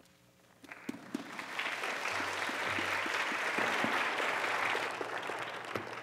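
Congregation applauding: the clapping starts about a second in, swells, and dies away near the end.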